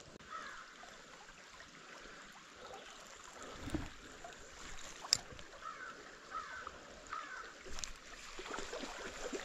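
Small creek flowing faintly, with a low thud a little before four seconds in and a sharp click about five seconds in from footsteps and handling of the spinning rod and reel.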